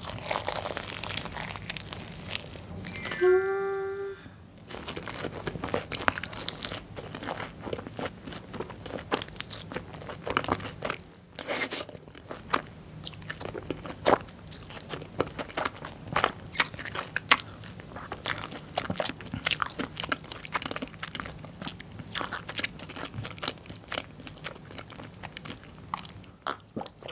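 Close-miked eating of a crispy crumb-coated Korean corn dog: crunching bites into the fried coating, then steady chewing with many small irregular crunches. A short steady pitched sound comes about three seconds in.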